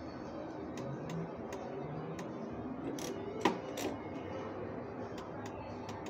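Three-reel slot machine spinning, with a string of sharp clicks every few tenths of a second and one louder knock about three and a half seconds in, over a steady background din.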